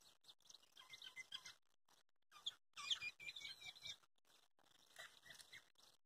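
Faint bird chirps in short flurries: about a second in, a louder run around three seconds in, and a few more near the five-second mark.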